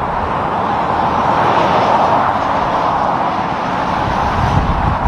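Highway traffic going by: steady tyre and engine noise from a front-loader garbage truck driving past. The noise swells about two seconds in, and a deeper rumble builds near the end as a pickup passes close.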